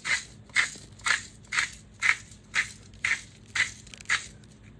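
Hand-twisted Redmond Real Salt grinder crunching coarse sea salt, in short regular strokes about two a second.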